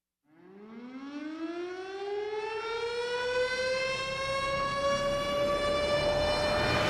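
Air-raid siren winding up from silence, one tone rising slowly in pitch over about six seconds, with a hiss building underneath it.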